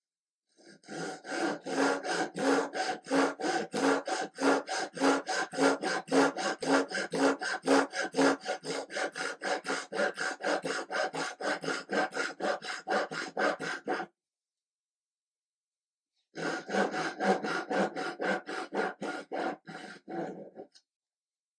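Fine-toothed Japanese pull saw cutting the shoulder of a wooden rail by hand, in quick, even strokes of about three a second. The sawing stops about two-thirds of the way through, then starts again for about four seconds.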